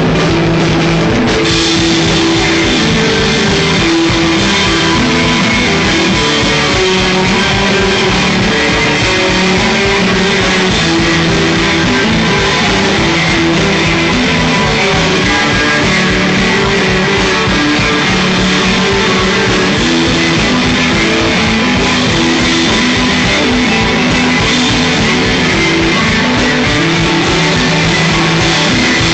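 A rock band playing live, with electric guitars over a drum kit, loud and unbroken throughout.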